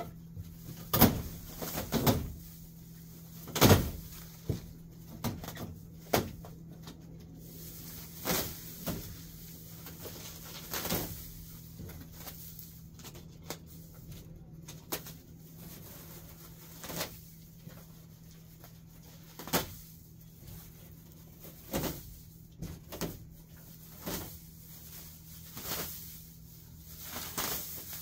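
Gloved hands pulling up weeds and dry grass: irregular rustling and tearing, a short burst every second or two, over a steady low hum.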